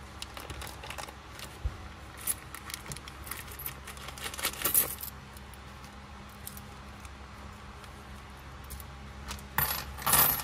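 A handful of loose American coins clinking together in gloved hands: scattered small clinks, busiest about four to five seconds in. Near the end comes a short burst of rustling as a small plastic zip bag of coins is handled.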